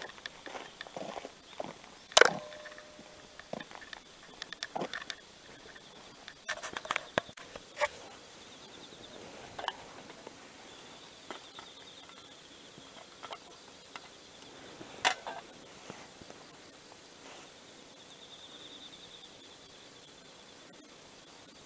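Close handling of camping gear on grass: scattered clicks, knocks and rustling, the sharpest knocks about two seconds in and again about fifteen seconds in, with fibrous tinder being picked at and pulled apart by hand near the end.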